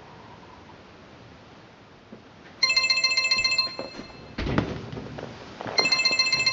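Cell phone ringtone ringing with an incoming call placed by the wireless home alarm's auto-dialer, the sign that the armed alarm has been triggered. It starts about two and a half seconds in and rings again near the end.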